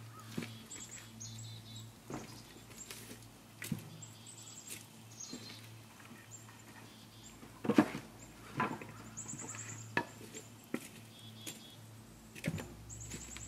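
Irregular knocks and clunks of split firewood being handled and loaded into the firebox of a wood-fired maple sap evaporator, the loudest about eight seconds in. A bird's high trill sounds twice in the second half.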